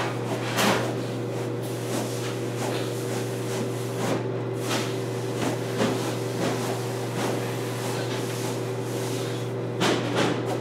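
Broom bristles swishing over a rubber doormat and tiled floor, one stroke about every second, over a steady low electrical hum.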